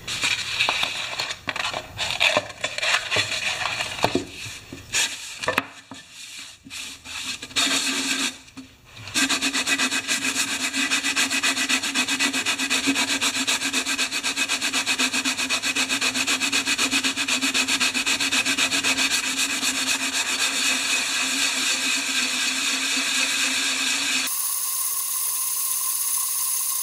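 The gasket face of a 1968 Homelite XP1020 chainsaw's cast gas tank is rubbed back and forth by hand on sandpaper laid on a flat board, lapping the surface flat so it will seal. Irregular scraping strokes and handling give way about nine seconds in to fast, steady strokes, which turn thinner and higher a couple of seconds before the end.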